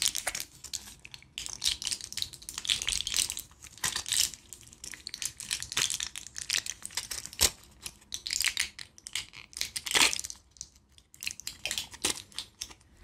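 Hands crumpling and crinkling a crinkly wrapper or paper, close-up ASMR handling: a dense run of irregular crackles and crunches with a few sharper snaps, the loudest about ten seconds in.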